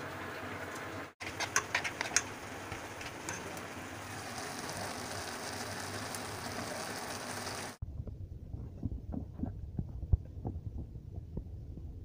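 Kitchen cooking sounds: a steady hiss with a few sharp clicks near its start, then, from about two-thirds of the way in, soft irregular low thumps and knocks of a spoon working thick pakoda batter in a steel bowl.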